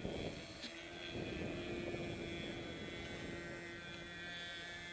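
Nitro (glow-fuel) RC model airplane engines flying overhead, a steady buzzing whine whose main tone gives way to a lower one near the end.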